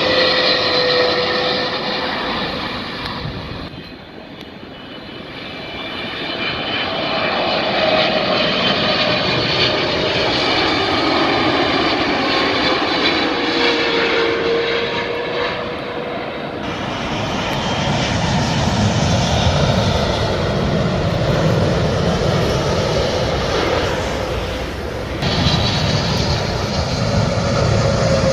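Jet airliners passing low on approach to land: engine noise with a whining tone that slides in pitch as each aircraft goes by, fading about four seconds in and building again, with abrupt changes in sound about two-thirds of the way in and near the end.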